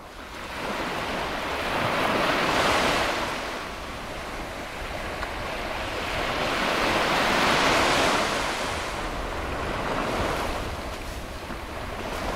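Ocean surf: waves breaking and washing up on a beach, rising and falling in slow surges.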